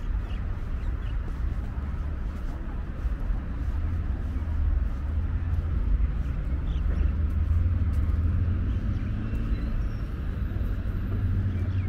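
Distant city road traffic: a steady low rumble with the hiss of cars going by.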